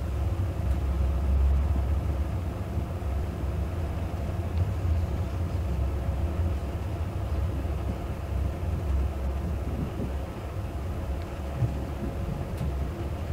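Regional passenger train pulling slowly out of the station, heard from inside the carriage: a steady low rumble with a faint steady hum over it and a few light ticks.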